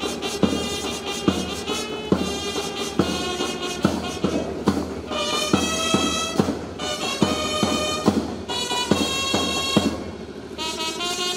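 Band music: a wind melody played in long held notes over a steady drumbeat, the drum striking about once every second.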